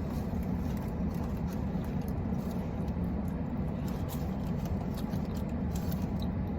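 Steady low hum of an idling car, heard from inside the cabin, with faint scattered clicks and rustles.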